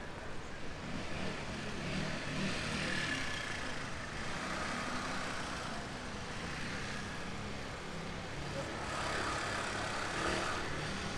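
Motor traffic passing by against a steady city background hum, swelling twice as vehicles go past.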